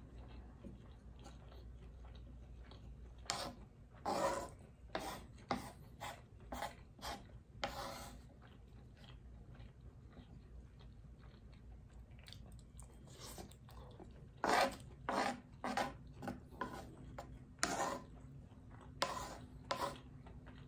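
Close-miked eating sounds: a wooden fork and a wooden spoon scraping and scooping crumbly food across a wooden board, mixed with chewing. The sounds come as short, crisp scrapes and crunches in two clusters, a few seconds in and again in the second half, with quieter stretches between.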